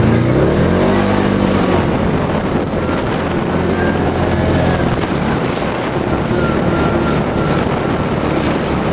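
Arctic Cat Wildcat 1000 side-by-side's V-twin engine running under way, heard from the cab. The revs dip and climb again about a second in, then hold fairly steady, with wind and rough-ground noise under it.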